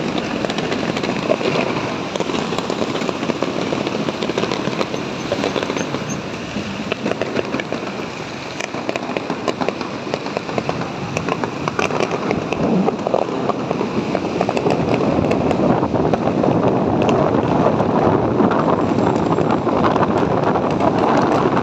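Fireworks crackling over a steady rush of wind and traffic noise on a phone microphone carried on a moving motorcycle; the rushing grows louder in the second half.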